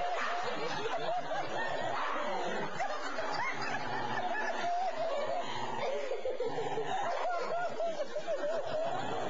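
Dog growling and grumbling over a bone in one long, unbroken stretch that wavers up and down in pitch: a possessive guarding growl.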